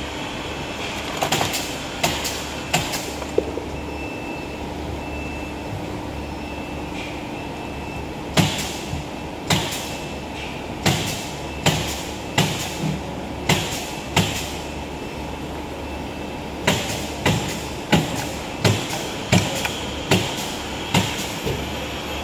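Automatic can seamer and factory machinery running with a steady hum. A few sharp metallic clunks come early on, then from about eight seconds in a run of clunks, one or two a second, with a short pause just past the middle.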